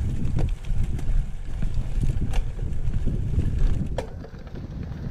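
Wind buffeting the microphone and the rough rumble of a cyclocross bike riding over a bumpy dirt track, with a few sharp clicks from the bike jolting over bumps.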